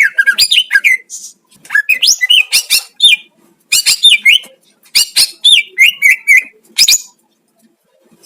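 Greater green leafbird (cucak ijo) singing in rapid bursts of sharp, sweeping whistled notes and chatter, with short pauses between phrases. The song stops for about the last second.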